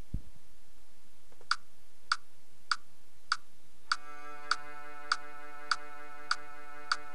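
LMMS metronome clicking about 100 times a minute, four clicks alone as a count-in, then a single sustained cello D note from a sound-font player comes in about four seconds in and is held steady under the clicks.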